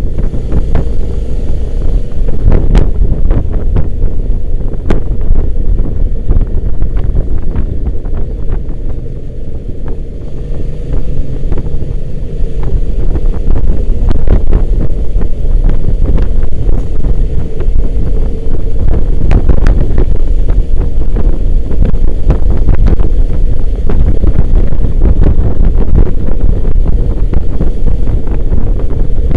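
Heavy wind buffeting the microphone of a rider on the move, a loud low rumble with constant crackle, easing briefly about a third of the way through.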